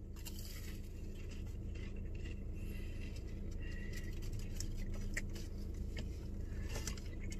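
Soft, quiet chewing of a stuffed churro, with a few faint clicks from the mouth, over a steady low hum inside a car.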